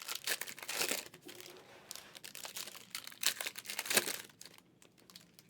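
Plastic wrapping of trading-card packs or boxes being torn open and crumpled: two bouts of loud crinkling, the second around three to four seconds in, which die down near the end.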